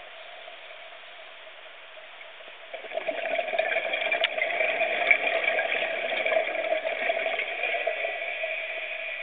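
Scuba diver's exhaled bubbles from the regulator, heard underwater as a bubbling rush that starts about three seconds in and fades near the end, over a steady hum.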